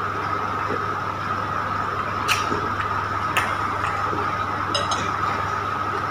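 Metal spoon clinking against a glass bowl, two sharp clinks a second apart about halfway through and a few fainter ticks after, over a steady background hum.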